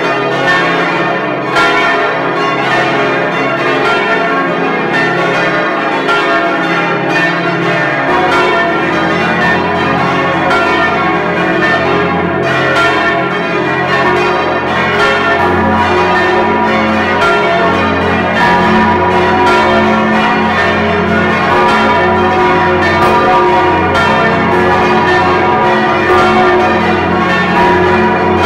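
The Stephanus bell of St. Stephan's church swinging and ringing, heard close up from inside the bell chamber, its strikes blending into a dense, continuous ring. A deeper tone joins about eight seconds in.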